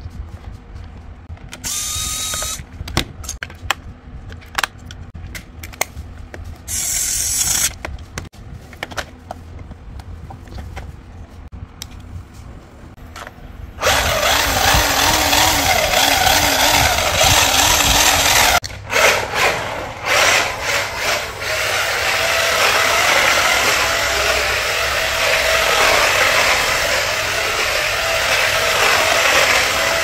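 Toy 1:16 RC drift car's simulated engine sound and electric drive motor starting about halfway in and running loudly and steadily, with a wavering rev tone at first, while the wheels spin with the car held off the ground. Before that come handling clicks and two short hisses.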